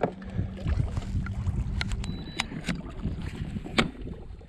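Baitcasting rod and reel being cast from a fishing kayak: low rumbling handling and water noise, a faint steady low hum for the first two seconds, and several sharp clicks and ticks from the reel and gear around the cast.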